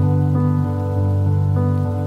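Gentle instrumental music, sustained notes and chords changing about every half second, with steady rain layered underneath.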